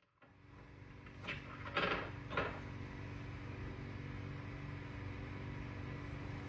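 Tabby cat growling low and steadily as a warning to a dog standing over its tennis ball, with three short hisses between about one and two and a half seconds in.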